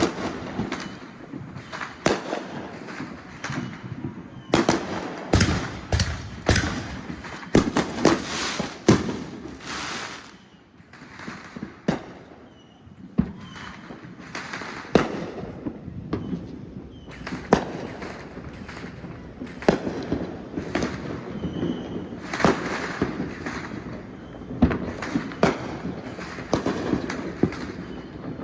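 Fireworks going off in quick succession: many sharp bangs, with a short lull about ten seconds in before a dense run of bangs resumes.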